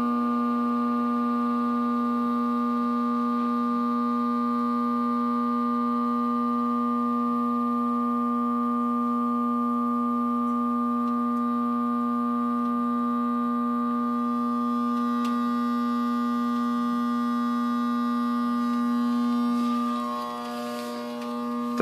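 Gas furnace running with a loud, steady droning hum of unknown origin. About 20 seconds in the drone drops in level and loses its upper tones as the top fan stops on its own, the fault that shuts the furnace down after its safety light flashes four times.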